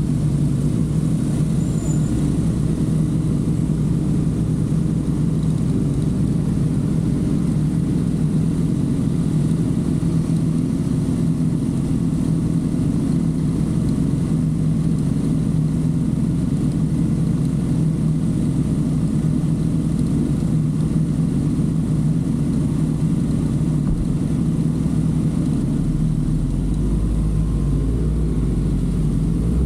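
Kawasaki ZX-6R's inline-four engine idling steadily in stopped traffic. A deeper low rumble joins near the end.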